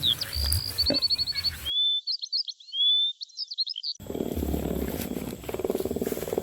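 Songbirds chirping and whistling in quick, repeated high notes; about four seconds in, a low pulsing growl sets in.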